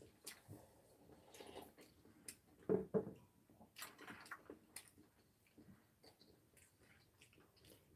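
Faint sounds of people eating at a table: soft chewing, with scattered small clicks of spoons and chopsticks against ceramic bowls.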